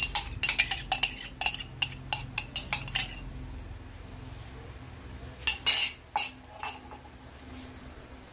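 A wooden spoon knocking and scraping against a plastic bowl and the rim of a ceramic-coated pan as sauce is scraped out into the pan and stirred. There is a quick run of sharp clicks for about three seconds, then a few more knocks a little past halfway.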